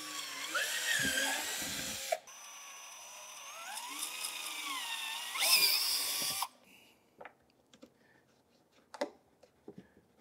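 Cordless drill boring holes through the plastic bottom of a Pelican case: it runs until about two seconds in, stops briefly, then runs again for about four seconds, its pitch rising and falling with the trigger and the load, and cuts off. A few light clicks follow as the case is handled at the new holes.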